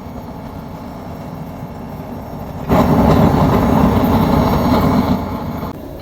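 Blacksmith's forge running with a steady rushing roar, which swells much louder a little under halfway through for about three seconds and then drops back.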